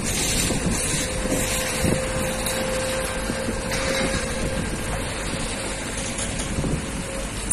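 Crawler crane's engine running steadily under load, a continuous low rumble with a steady whine above it, and a brief sharp knock near the end.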